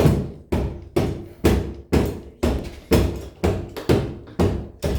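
Repeated heavy blows against a locked door, about two a second in a steady rhythm, each impact booming and ringing briefly: an attempt to break the door or its lock open.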